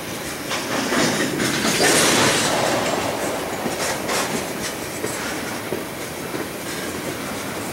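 Freight train cars (tank cars and boxcars) rolling past: a steady rumble of wheels on rail with clicks over the rail joints, at its loudest about two seconds in.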